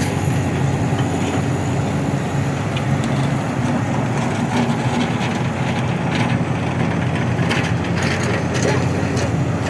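Heavy-equipment diesel engine running steadily, with scattered clanks and rattles in the second half.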